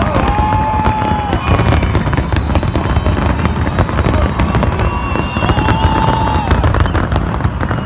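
Fireworks display going off in rapid succession: dense crackling and bangs over a steady rumble, with two held tones about a second long, one near the start and one about six seconds in.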